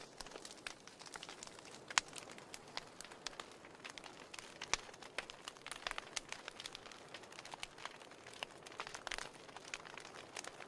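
Wood fire burning in a fireplace: irregular crackling and popping over a faint hiss, with one louder pop about two seconds in.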